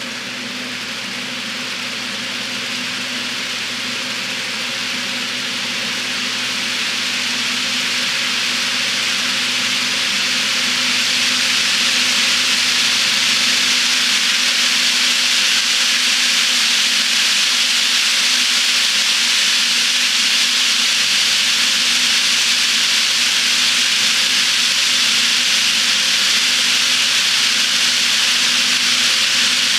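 HO scale model freight train rolling through a spiral helix: a steady rushing clatter of many metal wheelsets on nickel silver track, with a faint motor hum underneath, growing louder over the first ten seconds or so and then holding steady.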